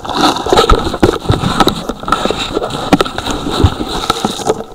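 Loud close-up rustling and crackling with irregular sharp knocks: handling noise from the camera being rubbed and bumped among grass.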